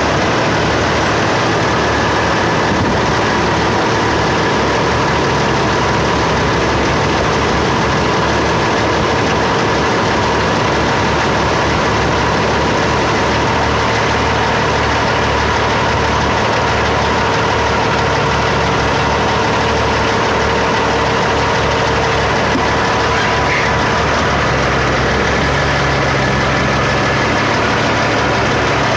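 Heavy diesel engine idling steadily, a low rumble with a steady whine over it.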